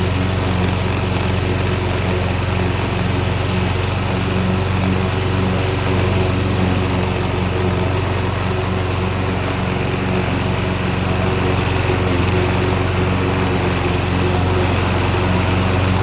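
Petrol lawnmower engine running steadily at a constant speed.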